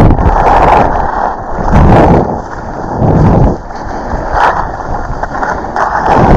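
Wind rushing over the microphone of a skier's camera during a downhill run, mixed with skis sliding on snow. The noise swells and eases in surges every second or two.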